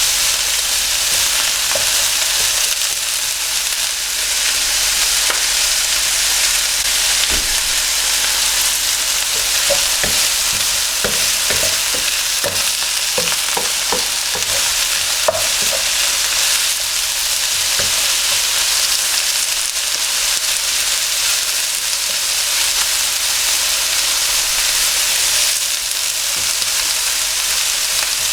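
Vegetables sizzling steadily in hot oil in a wok, with scattered small pops and crackles: the vegetables are searing against the wok's hot surface.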